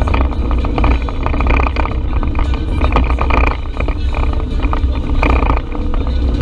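Side-by-side UTV engine running while driving a trail, with frequent knocks and rattles throughout.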